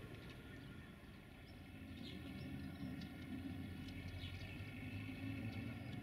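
Outdoor ambience by a railway track: faint bird chirps over a low, steady distant rumble that grows slightly louder partway through.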